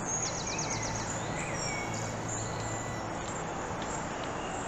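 Small birds singing over a steady background hiss: a quick high trill about half a second in, then several short whistled notes.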